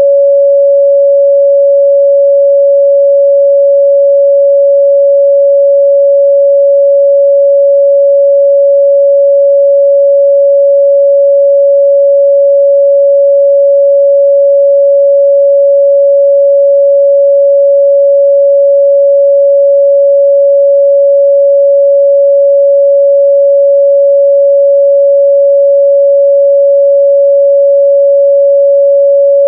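A pure 561 Hz sine-wave test tone, held steady and loud at one pitch with no other sound.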